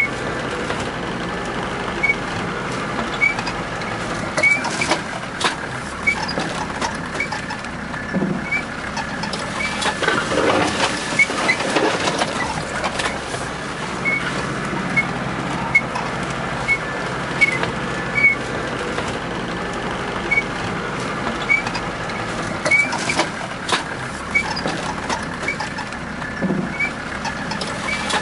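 Car driving over a rough gravel forest track, heard from inside the cabin: steady engine and road noise with frequent knocks and rattles from the bumps, and a short high chirp repeating every second or so.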